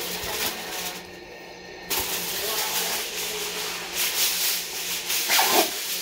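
Aluminium foil crinkling and rubbing as it is handled and folded around food, with a short lull about a second in and louder crackling about four to five and a half seconds in.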